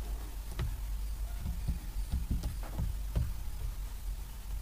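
Room tone with a steady low hum and a scatter of faint, soft taps: handling noise at the desk.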